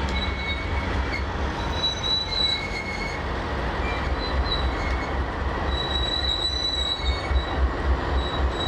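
Freight cars rolling slowly with high wheel squeal that comes and goes, over the low pulsing rumble of a Norfolk Southern diesel locomotive's engine, which grows a little stronger in the second half.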